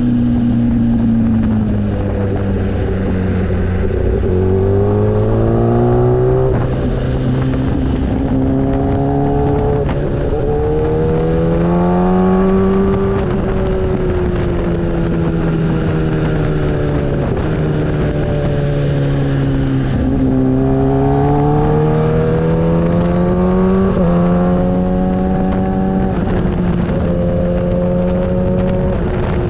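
Motorcycle engine running under way, its pitch climbing and falling over and over with several abrupt breaks as the throttle is opened and closed and gears change, over a steady rush of wind.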